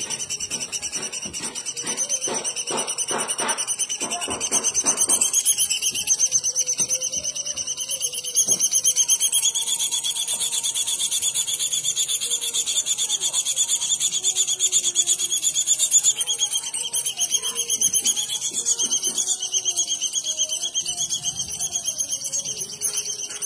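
An unidentified bird's continuous high-pitched buzzing trill of very rapid pulses, steady throughout and a little louder in the middle. Fainter low calls and a short run of clicks lie beneath it early on.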